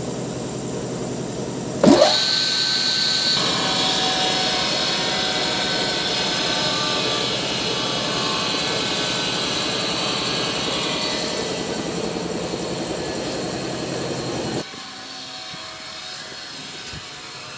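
An electric motor on a woodworking machine switches on about two seconds in with a quick rising whine, then runs steadily with a high hum. It stops abruptly near the end, leaving a quieter background hum.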